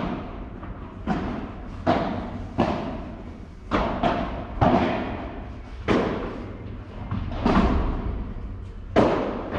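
Padel rally: the ball is struck back and forth, with about nine sharp hits roughly a second apart, each trailing off in an echo.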